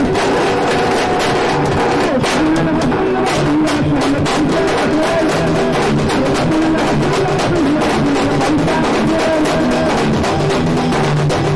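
Live drum band beating a fast, steady rhythm on large double-headed band drums, with a wavering melody line over the drumming.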